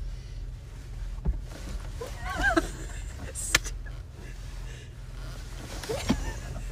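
Steady low rumble of a car's interior with the engine idling, broken by two short sharp clicks and a few brief soft vocal sounds from the people inside.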